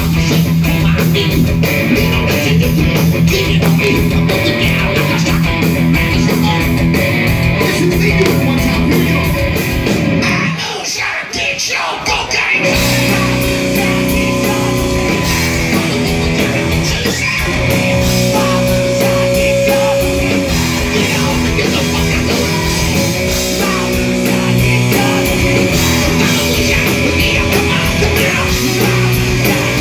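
Hard rock band playing live: distorted electric guitars, bass, drums and sung vocals, loud and close to the stage. About ten seconds in the music briefly thins out, then kicks back in.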